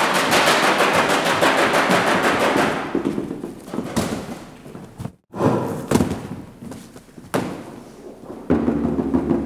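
A fast, even rattle of sharp knocks for about three seconds, fading away, followed by a few single knocks and then a steady hum near the end.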